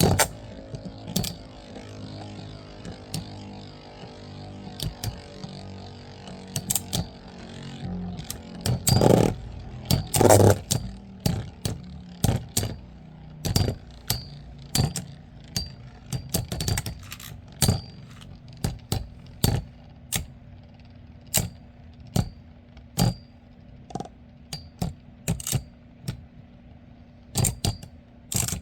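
Metal Beyblade spinning tops clashing in a stadium: sharp metallic clicks at an irregular pace of about one or two a second, louder clusters of hits near the start and around ten seconds in, over a steady whir.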